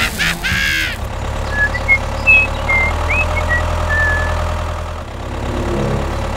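Tractor engine idling steadily, with a few short high chirps over it. The engine dips about five seconds in and picks up again near the end. In the first second there is a brief rising sweep.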